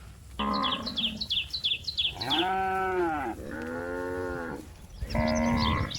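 Cattle mooing: about four long calls one after another, the middle two arching up and then down in pitch.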